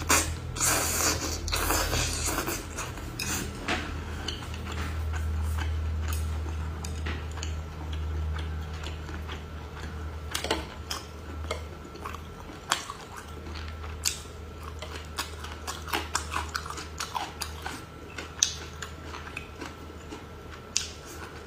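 Someone biting into and chewing cooked sea hare (small squid), with irregular soft clicks and smacks.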